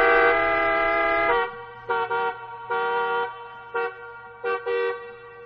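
Car horn honking, two notes sounding together: a long blast that cuts off about a second and a half in, then about five short toots, growing fainter near the end.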